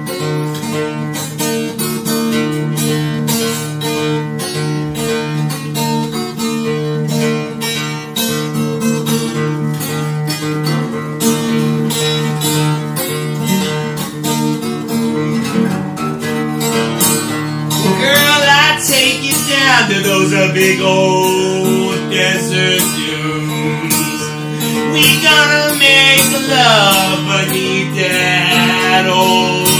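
Acoustic guitar strummed steadily in chords, with a man's voice joining in from about two-thirds of the way through, singing in long sliding notes.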